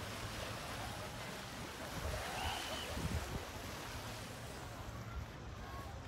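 Steady seaside ambience: the wash of the sea below, with wind rumbling on the microphone.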